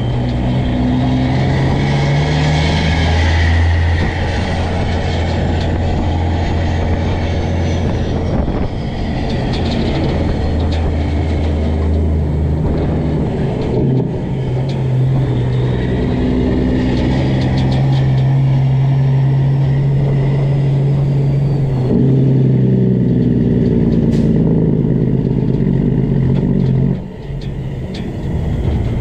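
Straight-piped Cat C15 inline-six diesel in a Peterbilt truck, running hard and steady, with its pitch shifting a couple of times. It briefly drops in loudness near the end.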